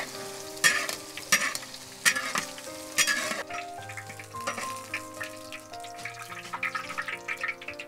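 Tofu cubes sizzling in hot oil in a large wok while a wire skimmer and metal spatula stir and scoop them out. The sizzle is loud and comes in bursts, then drops away about three and a half seconds in as the tofu is lifted clear, leaving light metal clinks.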